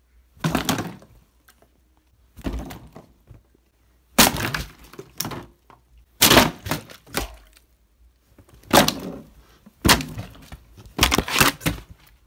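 Full plastic water bottles being knocked over and falling onto a painted windowsill, in a series of about eight thudding, clattering bursts.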